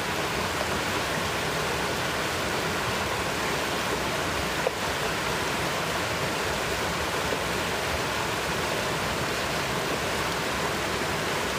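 River rapids rushing steadily over boulders, a constant whitewater hiss, with one brief click about halfway through.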